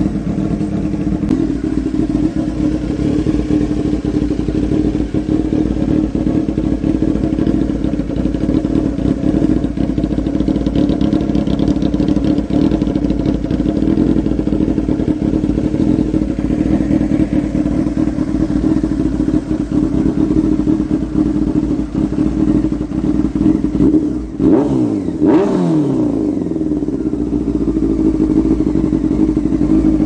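Honda CBR600F2's inline-four engine idling steadily through a homemade stainless steel exhaust muffler. Late on, one quick blip of the throttle makes the note rise and fall back to idle.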